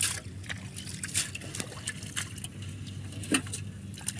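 Shallow, muddy pond water splashing and sloshing in short, irregular splashes as hands grope through it feeling for crabs, the loudest splashes at the start and about three seconds in. A steady low hum runs underneath.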